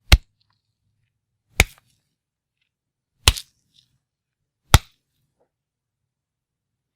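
Fight punch sound effects: four sharp, separate hits about a second and a half apart, the third with a short double tail.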